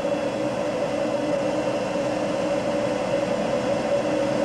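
Steady background hum with hiss, holding a constant mid-pitched tone throughout.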